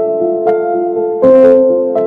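Gentle background music on electric piano, slow held notes and chords changing about every half second. About a second and a quarter in, a brief louder, harsher sound cuts across it.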